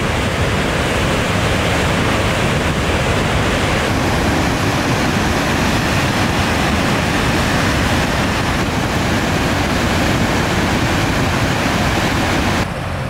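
Yantic Falls in major flood stage: floodwater pouring over the falls and the dam crest, a steady, loud rush of water. The sound drops abruptly near the end.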